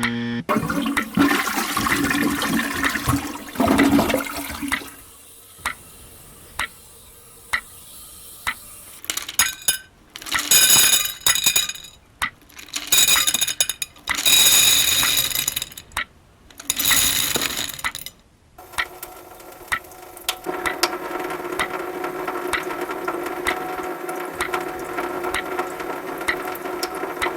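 Electronic soundscape collage of edited sound effects. A loud rushing, water-like noise runs for about five seconds, followed by a quieter stretch of scattered clicks and then a string of loud noisy bursts with short gaps between them. From about two-thirds of the way through, a steady drone of several held tones sits under faint clicks.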